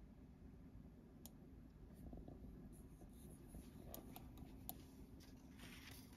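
Near silence: faint room tone with a steady low hum, a few soft clicks and a light scratchy rustle near the end.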